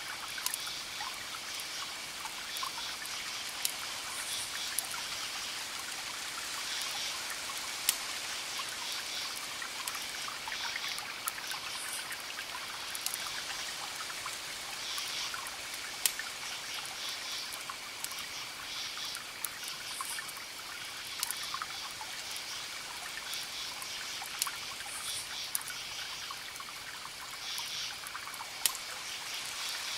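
Wood fire crackling steadily with dense small snaps and a few sharp, louder pops.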